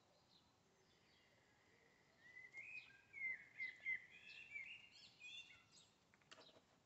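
A songbird singing one quick, warbling phrase of about four seconds, starting about two seconds in, over a faint outdoor background; a couple of brief clicks follow near the end.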